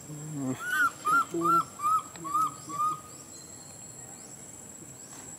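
Young macaque giving a quick run of six short, arched, high coo calls, about two and a half a second, each a little lower than the last, stopping about three seconds in; low murmuring sounds come in among the first calls.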